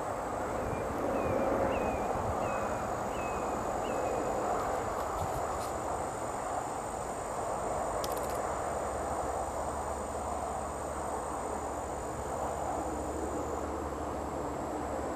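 A steady high insect drone over a steady background of road noise, with about six short high chirps in the first four seconds. The insect drone stops near the end.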